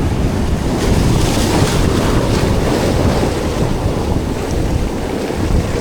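Strong wind buffeting the microphone, over the steady wash of surf.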